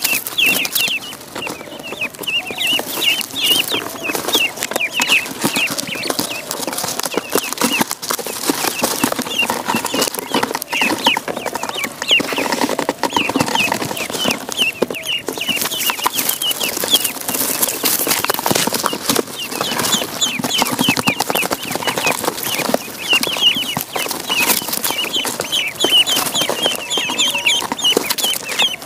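A crowd of ducklings peeping nonstop, many short high chirps a second overlapping, with a scratchy tapping and rustling underneath.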